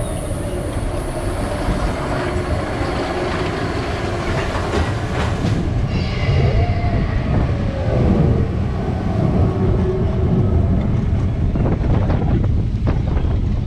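Roller coaster train running along its steel track: a loud, steady rumble with faint squeals and glides in the middle.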